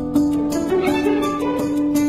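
Background music: a string-instrument tune over a held note, with a light, steady beat.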